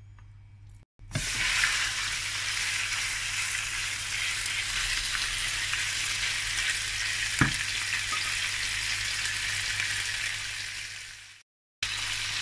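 Cubed pork loin searing in a little hot olive oil in a pan on high heat: a loud, steady sizzle that starts suddenly about a second in as the meat hits the oil. A single knock sounds about seven seconds in. The sizzle briefly drops out near the end and then resumes.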